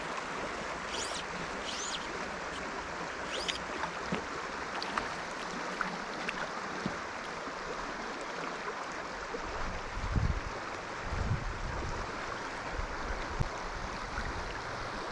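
Steady rush of a trout stream's flowing water, with a few short high chirps in the first few seconds and low buffets of wind on the microphone in the second half.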